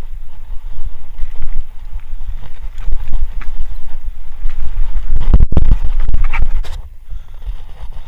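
Wind buffeting the microphone and the rumble and rattle of a hardtail mountain bike riding over rough trail. It is loudest from about five seconds in until nearly seven seconds, then eases.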